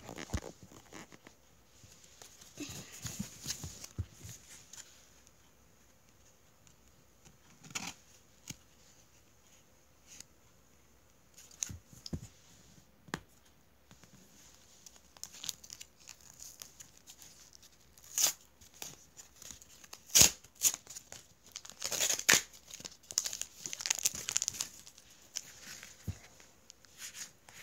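Crinkling and tearing of a foil Pokémon booster pack wrapper, with cards being handled: scattered sharp crackles, sparse at first and loudest and busiest in the second half.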